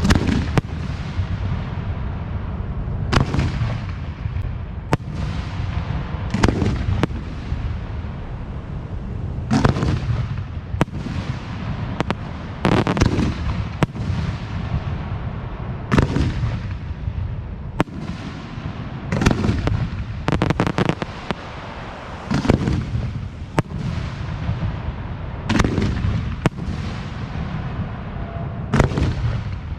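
Aerial firework shells, 4- to 6-inch, bursting one after another, a deep boom every one to three seconds with echoing rumble between them and a few sharper cracks.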